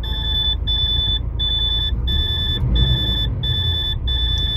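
Truck cab warning buzzer beeping on and on, about one and a half short beeps a second, over the low rumble of the DAF CF's diesel engine idling. The noise is a warning the mechanic finds really annoying.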